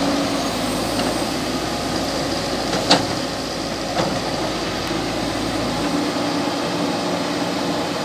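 JCB excavator's diesel engine running steadily, with a sharp knock about three seconds in and a fainter one a second later.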